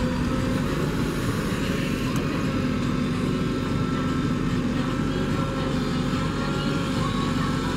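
JCB 3DX backhoe loader's diesel engine running steadily under working load while the backhoe arm swings down and digs, with faint thin higher tones over it.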